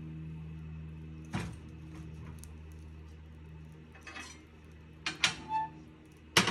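Split firewood being loaded into a cast-iron wood stove: a wooden knock as a log goes into the firebox, then clattering and metallic clanks as the cast-iron door is shut and latched, the loudest clank near the end. A steady low hum runs underneath.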